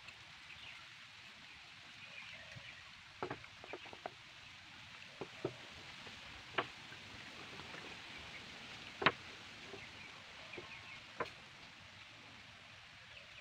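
Sparse, sharp wooden taps and knocks as small finished wooden pieces are handled and set down on a wooden tabletop, the loudest about nine seconds in, over a faint steady outdoor background hiss.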